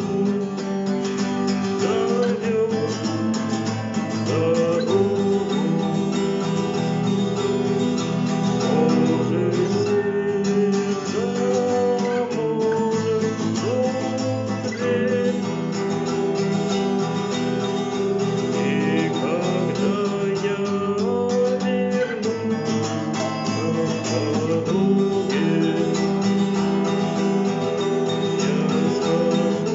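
Acoustic guitar strummed in a steady rhythmic pattern, chords ringing with regular percussive muted strokes: the 'стук' (knock) strumming technique.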